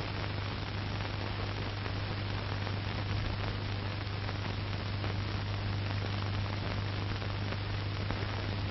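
Steady hiss with a low, even hum underneath: background noise of the soundtrack, with no other sound.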